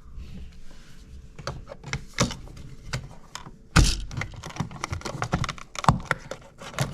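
Irregular clicks, taps and knocks from handling a GFCI receptacle and its wiring at the wall box, with one louder thunk about four seconds in.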